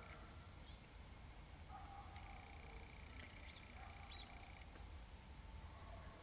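Near silence: faint outdoor background with a few short, high chirps.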